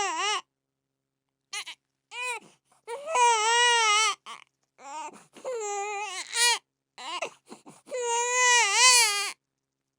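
A baby crying: three long, wavering wails of about a second each, with short sobs in between and brief silent pauses.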